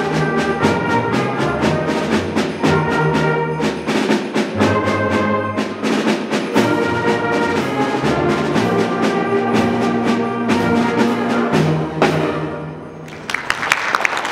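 Youth concert band of brass, saxophones, woodwinds and percussion playing the closing bars of a piece over a steady drum beat; the final chord cuts off about twelve seconds in, and applause breaks out a second later.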